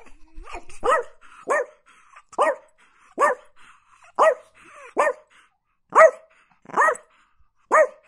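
A dog barking: a steady run of single high-pitched barks, about one a second, nine in all.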